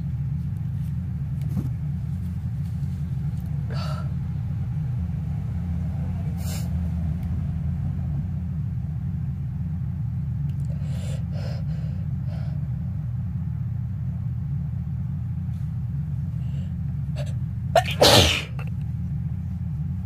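A person sneezes once, loudly, about eighteen seconds in, a sneeze set off by household dust. A few faint short sounds come before it, and a steady low hum runs underneath.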